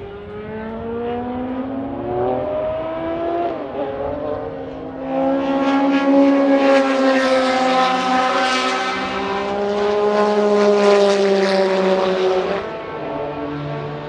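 Racing prototype's engine under acceleration, its pitch climbing over the first few seconds with a brief dip about three and a half seconds in. It then grows loud and keeps rising as the car comes close, and drops off abruptly about twelve and a half seconds in.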